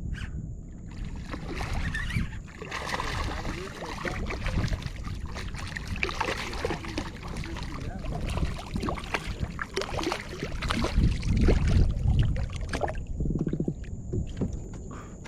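Splashing, sloshing and irregular knocks and rustles around a fishing kayak while a freshly caught black drum is handled aboard. There is a short buzzing sound near the end.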